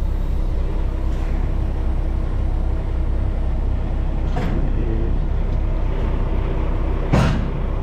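Semi-truck diesel engine running steadily as the tractor pulls out from under a dropped flatbed trailer, with a clunk about four and a half seconds in and a louder, heavier knock near the end.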